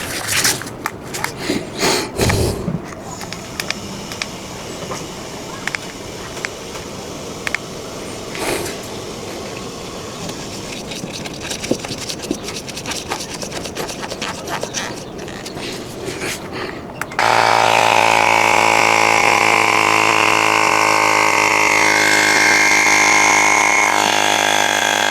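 Scattered clicks and knocks of tools and parts being handled, then a small electric motor starts after about seventeen seconds and runs loud and steady for about eight seconds before cutting off.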